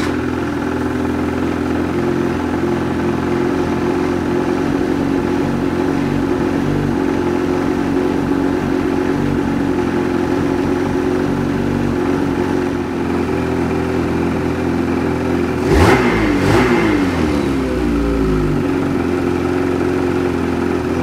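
Ski-Doo Backcountry 600 snowmobile's two-stroke twin engine running steadily just after its first start, blipped once about 16 seconds in, the pitch rising briefly and then easing back down to idle.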